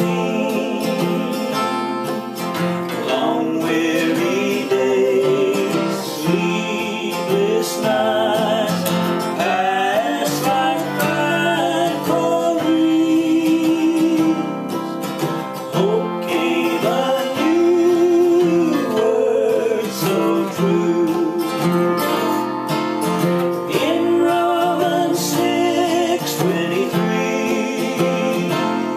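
Two men singing a traditional gospel song in close harmony, each strumming a steel-string acoustic guitar in a steady rhythm.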